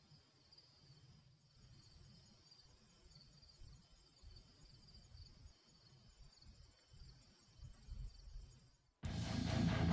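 Faint outdoor ambience: a steady high insect trill over a low rumble. Guitar-and-drum music cuts in suddenly about nine seconds in.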